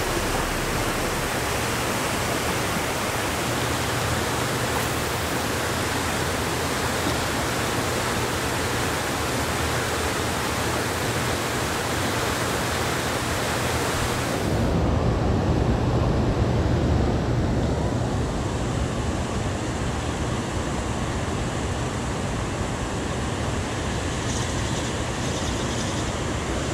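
Steady rush of water below a hydroelectric dam, with a low hum underneath. About halfway through the sound turns duller, losing its hiss.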